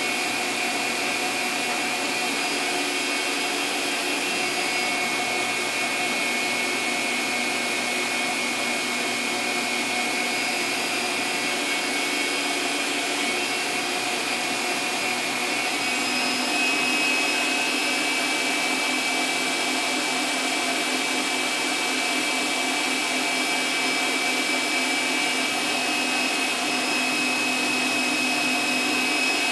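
Electric stand mixer running steadily with a motor whine as it beats cake batter; the whine steps slightly higher about sixteen seconds in.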